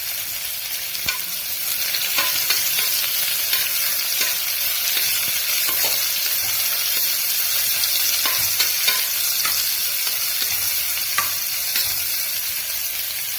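Sliced onions sizzling in hot oil in a small pressure cooker, being sautéed until light brown, with a spatula scraping and clicking against the pot as they are stirred.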